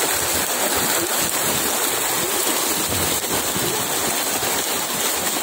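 Steady, dense splashing of water from many fish thrashing together in a net that is being hauled in tight.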